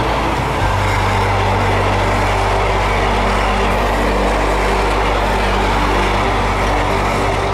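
Loaded container flat wagons of a freight train rolling past at close range: a steady rumble of steel wheels on the rails.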